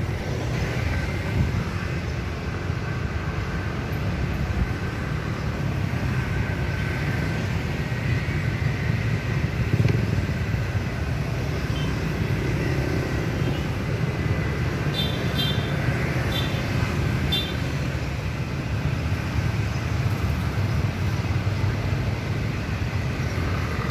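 Steady rumble of road traffic passing on a city street, with a few short high pips about two-thirds of the way through.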